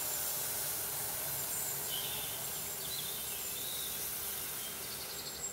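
Hot water, tinted with kesari food colour, poured in a steady stream from a steel pan onto ghee-roasted sago pearls in a hot kadai, hissing as it lands.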